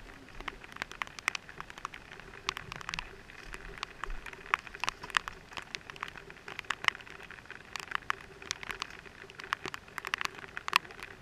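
Raindrops striking a helmet-mounted camera and helmet: an irregular scatter of sharp ticks over a steady hiss of rain.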